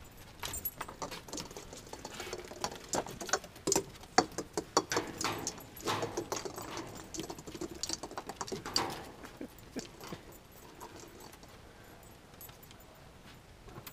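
Small Yorkshire terriers scampering and playing on a wooden deck: a quick scatter of claw and paw clicks, scuffs and small knocks on the boards, busiest in the first two-thirds and thinning out near the end. Among them are light clicks of plastic Christmas ornament balls that the dogs are going after.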